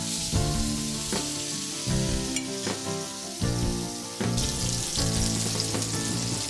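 Rohu fish pieces frying in hot oil in a pan, giving a steady sizzle. Background music with held notes plays over it.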